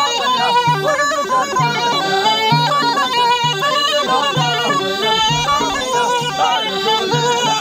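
Yemeni mizmar, a double-pipe reed pipe, playing a continuous, ornamented folk melody without pauses for breath, over a drum struck about once a second.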